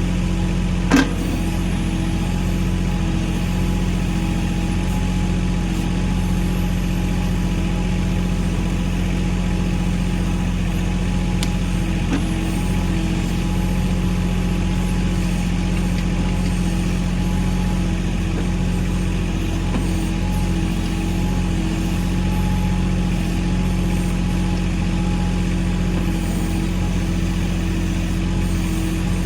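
Mahindra 1626 compact tractor's diesel engine running at a steady speed, with one sharp knock about a second in.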